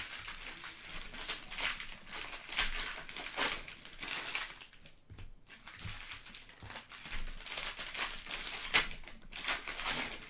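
Cellophane wrappers of Panini Prizm basketball cello packs crinkling and rustling as the packs are handled and torn open, in a string of irregular crinkles with one sharper, louder crackle late on.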